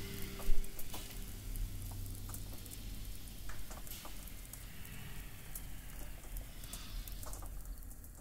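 Light patter of scattered clicks and crackles over a soft hiss, like rain. The last tones of a music track fade out in the first few seconds, and there is a sharp click about half a second in.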